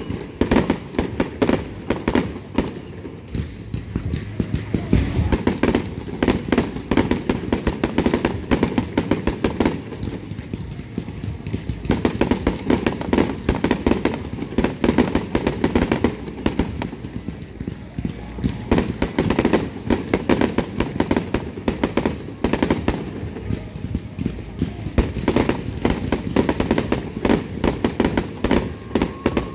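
Aerial fireworks display: a continuous barrage of shells launching and bursting, many bangs and crackles every second with no pause.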